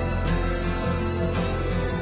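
Background music: held instrumental tones with a light, regular beat.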